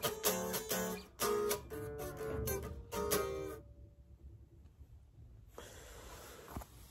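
Electric guitar playing a quick run of picked notes and chords that stops a little past halfway through, followed by faint noise.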